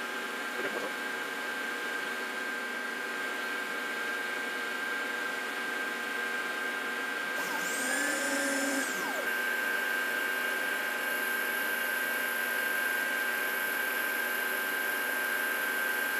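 Grizzly G0755 mill/drill spindle running while its insert cutter machines a part held in the vise, a steady machine hum with a high whine, a little louder from about eight seconds in. The footage runs at four times speed, so the cutting sound is sped up.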